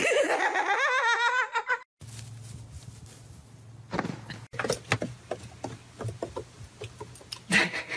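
A person laughing in a high, wavering voice for about two seconds. It breaks off abruptly, and a low steady hum follows, with scattered knocks and thuds.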